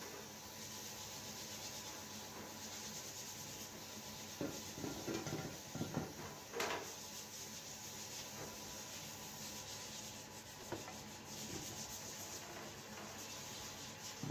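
Paint spray gun hissing in on-and-off bursts of a second or so while spraying a sewing machine head, with a few light knocks in the middle.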